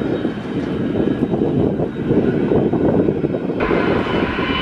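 Business jet engines on the runway, a steady rumbling noise. About three and a half seconds in it cuts to another jet's engines, adding a steady high whine.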